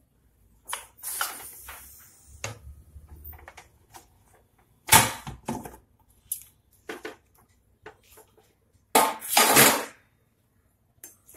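Pressure cooker lid being opened and handled: scattered metal clanks and knocks of the lid against the pot, with a louder clatter about five seconds in and another near nine seconds.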